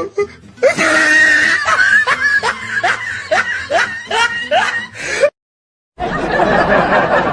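A laughing sound effect: a pitched laugh in short, evenly repeated rising pulses, about two or three a second, lasting several seconds. It cuts off abruptly into dead silence for over half a second. Then a different, noisier clip starts.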